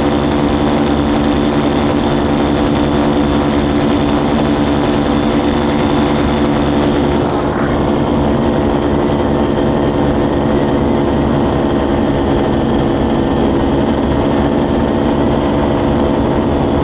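Powered paraglider (paramotor) engine and propeller running at a steady speed, the pitch holding constant.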